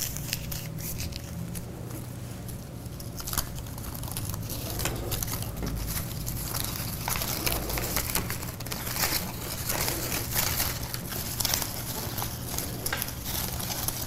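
Thin paper rustling and crinkling as a folded, cut paper strip is unfolded by hand, in many small crackles, sparse at first and busier from about five seconds in.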